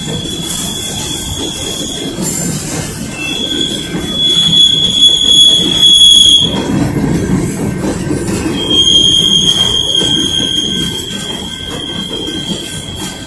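Covered hopper cars of a freight train rolling past, the wheels rumbling on the rails with a high, steady wheel squeal over it. The squeal drops out briefly about two seconds in and again for about two seconds past the middle, and is loudest just before that second gap.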